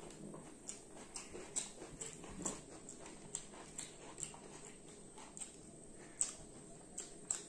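Close-up eating sounds of chewing and mouth smacks while rice and chicken curry are eaten by hand, with fingers working the rice on ceramic plates. There are irregular sharp clicks, a few a second, the sharpest about six and seven seconds in.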